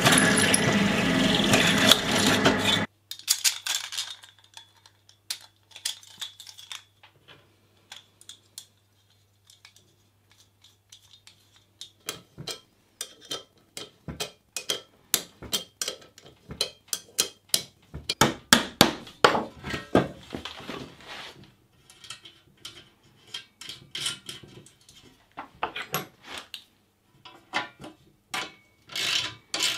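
A bench drill press running, stopping sharply about three seconds in. Then scattered metallic clinks and knocks as aluminium square tubing, corner L brackets and bolts are handled and bolted together with a spanner and ratchet, busier in the second half.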